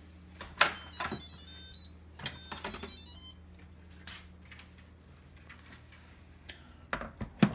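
Instant Pot electric pressure cooker's control panel beeping, a quick run of short electronic tones, as it is set going. Two sharp knocks about half a second and a second in, and a few lighter clatters, come from handling the lid and pot.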